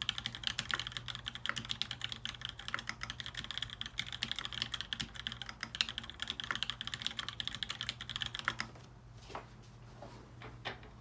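Fast typing on a mechanical keyboard with lubed Kailh Cream linear switches, 60 g springs and a sandwich-mounted aluminium plate: a dense run of key clacks that stops about three-quarters of the way through, followed by a few scattered keystrokes.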